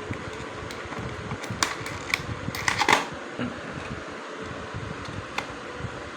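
A steady fan-like hiss, with a cluster of light clicks and taps from about one and a half to three seconds in and one more click near the end, typical of small hard laptop parts being handled during an SSD swap.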